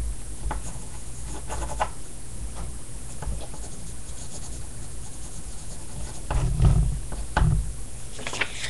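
Pen or marker scratching across paper in short strokes as a word is written, with soft knocks and handling thumps against the desk about six and a half and seven and a half seconds in.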